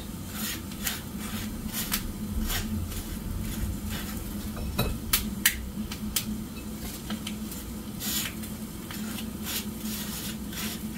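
Table knife spreading butter on toast: short, irregular scrapes and light taps, over a steady low hum.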